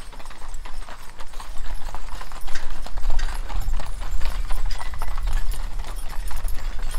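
Hooves of a mule team clip-clopping on a gravel road as covered wagons pass, over a low rumble that grows louder about a second and a half in.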